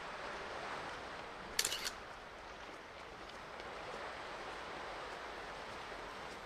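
A camera shutter fires: a short cluster of sharp clicks about one and a half seconds in, over a steady background hiss.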